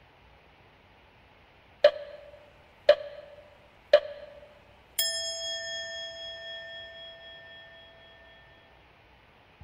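Edited-in comic sound effect: three short tapping blips about a second apart, timed to dots popping up one by one, then a single bell chime that rings out and fades over about four seconds.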